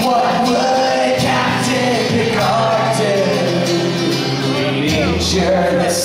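A man singing live with his own acoustic guitar accompaniment, heard through the hall's PA.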